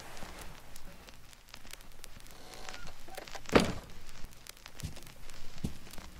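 A tall glass-panelled door swinging shut with a single sharp thunk about halfway through, followed by a few fainter knocks.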